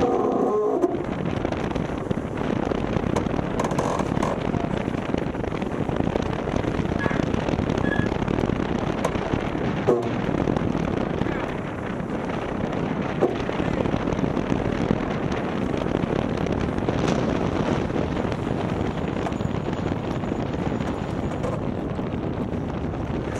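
Steady rushing noise of wind across the microphone and water streaming along the hull of a Maxi72 racing yacht sailing fast, with a single sharp tick about ten seconds in.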